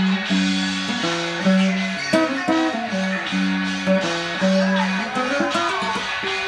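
Nylon-string classical guitar fingerpicked: a slow melody of single plucked notes over a low bass note picked again and again.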